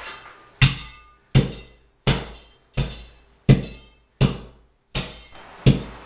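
Steel-plate hand tamper striking and compacting loose dirt backfill in a trench. Eight evenly spaced thuds come about 0.7 s apart, each sharp and short.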